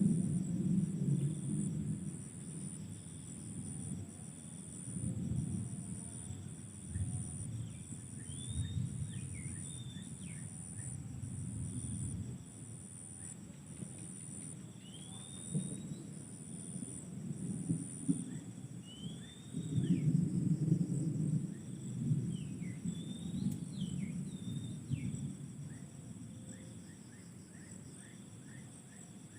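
Insects calling: a high, evenly pulsed trill over a steady high drone, the trill stopping about two-thirds of the way through. A few short whistled bird calls that rise and fall come through now and then, over an uneven low rumble.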